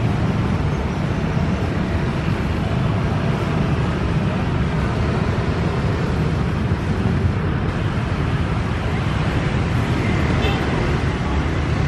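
Passenger train coaches rolling past on the rails, a steady running noise of wheels and bogies that carries on as the last coach goes by and draws away.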